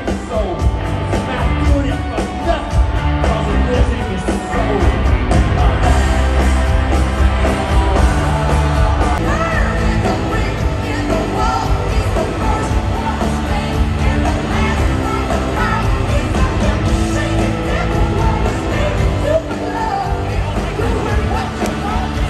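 Live rock concert music: a band playing with a singer, and the crowd yelling and whooping along.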